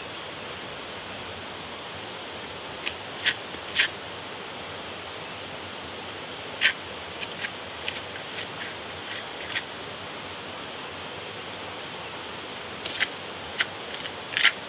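Trowel scraping and tapping mortar into the joints of a concrete block wall: short, sharp scrapes in small clusters, over a steady background hiss.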